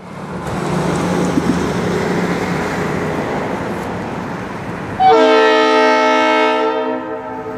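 A diesel locomotive rumbles as it approaches. About five seconds in its air horn sounds one long blast of several notes at once, lasting about two seconds, then fades out.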